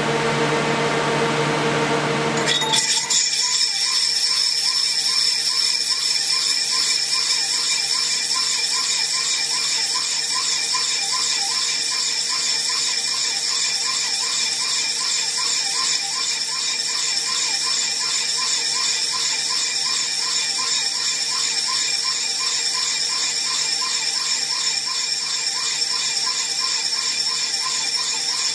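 A steady high-pitched cutting whine from a lathe turning hardened steel with a Seco TH1500 insert, with a faint regular pulse underneath. A lower hum in the first few seconds gives way abruptly to the whine.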